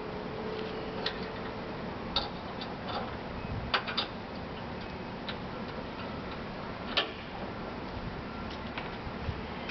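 A handful of separate sharp clicks and knocks from the crank handle of a Cramaro Loc-Rite tarp roller being worked by hand. The loudest comes about seven seconds in, with a close pair just before four seconds.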